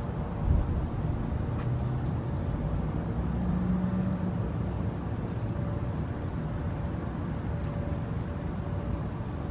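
Steady low outdoor rumble of background noise with a brief thump about half a second in. No siren is sounding: the test activation has failed.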